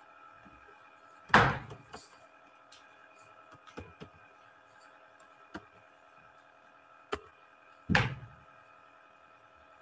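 Irregular computer keyboard keystrokes, a few light clicks and two heavier thumps, over a steady electrical hum from the recording setup.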